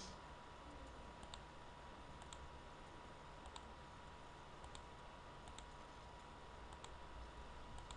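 Faint computer mouse clicks, single and in quick pairs, scattered over about a dozen strokes, over low hiss and a faint steady tone.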